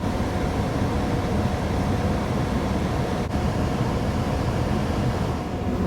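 Steady low rumble of a running car heard from inside the cabin, with a faint steady tone over it.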